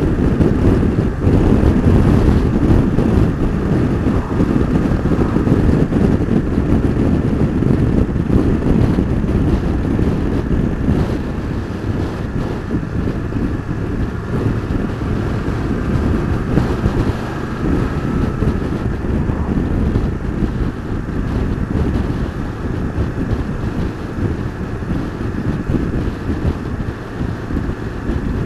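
Heavy wind buffeting on a camera microphone while riding a BMW F850GS Adventure motorcycle at about 40 mph. Underneath the wind is the rumble of the bike's parallel-twin engine and road noise.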